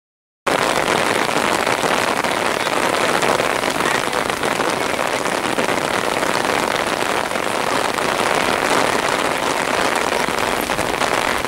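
Steady hiss of heavy rain falling, starting abruptly about half a second in after a moment of silence.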